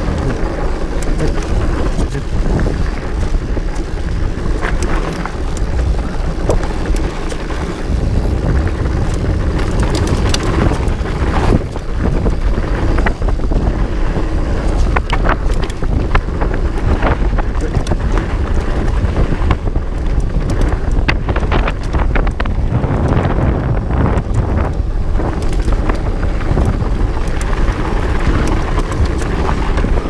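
Wind buffeting the microphone of a camera on a 2017 Trek Farley EX 8 fatbike descending a downhill mountain-bike trail. Over it come frequent sharp clicks and knocks as the bike jolts over the rough dirt.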